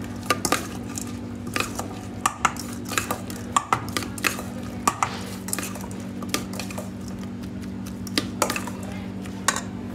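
A spoon stirring a creamy onion and soya chaap filling in a stainless-steel bowl, scraping and clinking irregularly against the metal. A steady low hum runs underneath.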